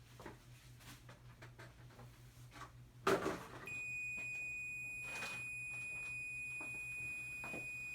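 A knock about three seconds in, then a steady high-pitched electronic beep tone comes on and holds, signalling that the Dwyer L4-SS level switch has actuated and closed its circuit.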